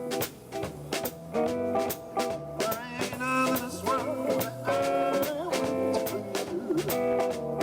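Small jazz trio playing an upbeat swing tune in G: upright bass and brushed drums keeping a steady beat under a melody line whose pitch wavers.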